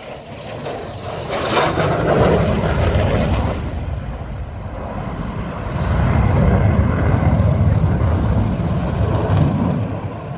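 USAF Thunderbirds F-16 Fighting Falcon jet making a low, fast pass, its engine noise swelling to a loud rush about a second and a half in, easing, then coming back as a deeper rumble in the second half.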